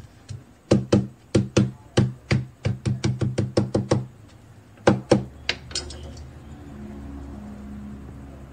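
A kitchen knife's handle pounds spring onions against a bamboo cutting board to crush them. It makes a quick run of wooden knocks, about four a second, which stops about four seconds in. A few more knocks come around five seconds in, and then only a faint low hum remains.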